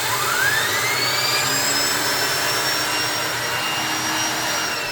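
Shark Navigator Lift-Away Pro upright vacuum cleaner running just after being switched on. Its motor whine rises in pitch over the first second or two, then holds steady, and starts to wind down right at the end.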